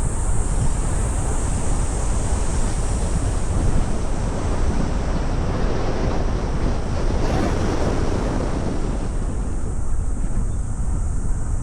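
Steady wind and road rumble from a car driving along a road, swelling briefly a little past the middle.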